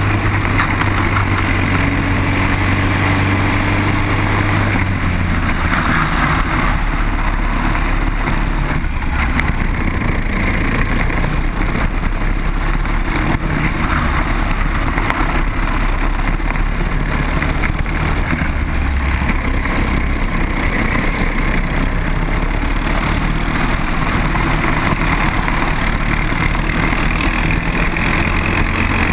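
Briggs & Stratton four-stroke kart engine running hard on the circuit, its note rising and falling as the kart brakes and accelerates through the corners, with other karts' engines running close by.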